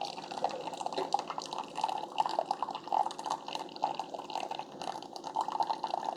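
Keurig K-Supreme Plus Smart coffee maker brewing: a stream of hot coffee pouring and spattering into the cup, steady throughout.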